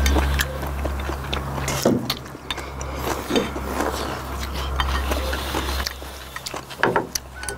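Eating sounds of spicy noodles: metal chopsticks clicking and scraping against ceramic bowls, with short slurps and chewing. A low steady hum runs underneath and drops away about six seconds in.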